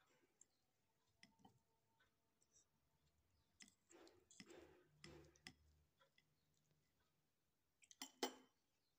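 Faint clicks and scrapes of a knife and fork cutting through a stack of pancakes on a glass plate, with a louder clink of cutlery near the end.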